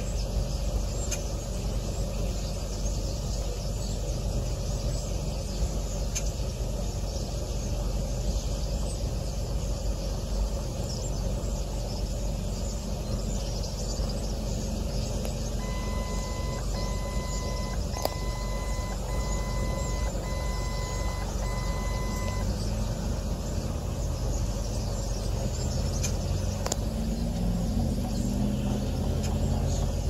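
Steady low rumble of vehicle traffic, with a run of about six evenly spaced electronic beeps around the middle, like a vehicle's reversing alarm, and an engine rising in pitch as it accelerates near the end.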